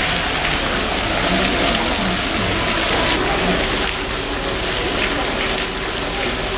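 Pool water splashing and churning as a polar bear swims and rolls at the surface: a steady rushing patter of water.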